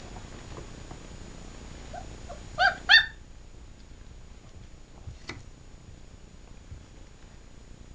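Three-week-old German Shepherd puppies squeaking: about two and a half seconds in, one gives two short, high yelps in quick succession, with a couple of faint squeaks just before.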